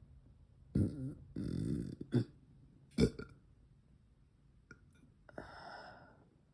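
A girl burping loudly after chugging a drink on an empty stomach: a drawn-out belch with a wavering pitch about a second in, followed by shorter, sharper burps, and a softer breathy sound near the end.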